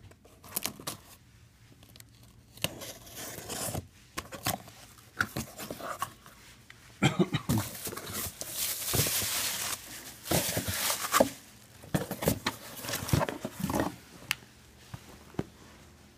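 A mailed package being opened by hand: packaging tearing and rustling, with scattered clicks and knocks of handling. The rustling is loudest and longest in the middle.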